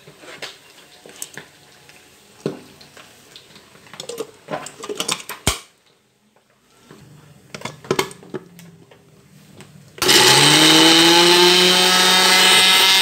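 Scattered knife taps and knocks on a plastic cutting board as red chilies are cut into a blender jar. After about ten seconds an electric blender switches on, its motor whine rising as it spins up and then running steadily, grinding chilies, tomato and garlic into a spice paste.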